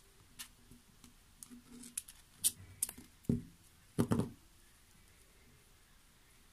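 Small clicks and rustles of hands wrapping floral tape around a mizuhiki flower's wire stem, with a couple of dull knocks a little over three and four seconds in. The handling stops about four and a half seconds in.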